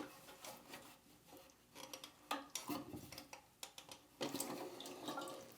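Faint, scattered small clicks and light rattles of plastic parts being handled as the cap of a Fluidmaster 400 toilet fill valve is twisted off.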